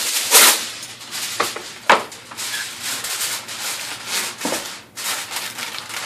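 Aluminum foil crinkling and rustling as a sheet is laid over a foil-lined baking sheet and crimped down around the edges to seal it, with a few sharper crackles.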